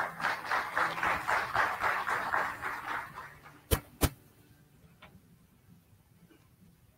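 Audience applause that fades out about three seconds in, followed by two sharp knocks in quick succession.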